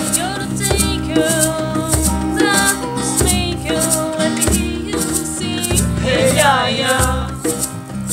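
A small band plays a song on acoustic guitar and electric bass, with a shaker keeping a steady rhythm. A wavering melody line runs over the top.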